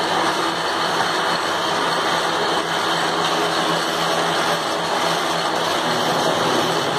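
Metal lathe running steadily: an even machine hum with a dense hiss over it, unchanging throughout.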